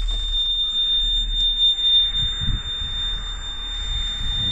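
A cab warning buzzer sounding one steady high-pitched tone, over the low rumble of the old diesel V8 running.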